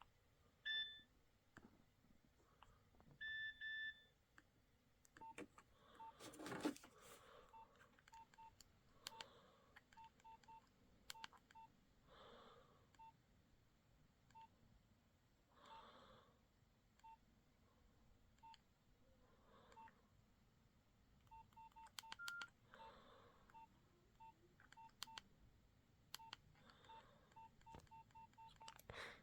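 Faint short keypad beeps from a Nokia 6030 mobile phone as its buttons are pressed, coming at irregular intervals, with two longer, higher beeps in the first few seconds. A brief rustle about six and a half seconds in is the loudest sound.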